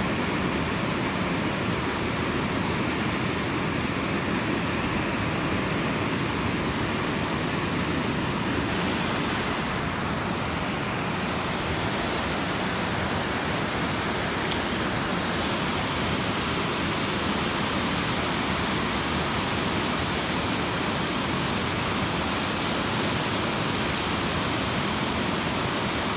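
Steady rush of water churning out of a dam spillway, an even noise that does not change, with one faint light click about halfway through.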